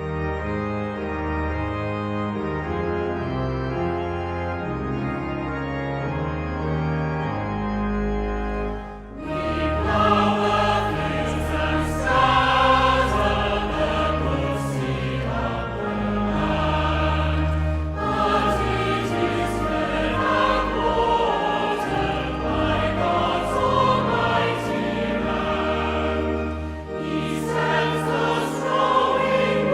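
A hymn: an organ plays sustained chords alone for about nine seconds, then a choir comes in singing with the organ.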